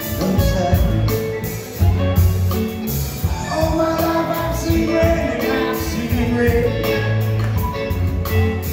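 Live rock band playing: electric guitars, bass guitar and drum kit, with held notes over a steady beat.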